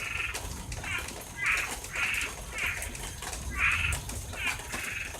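A chorus of toads calling: short, repeated calls from several animals overlapping, about two a second.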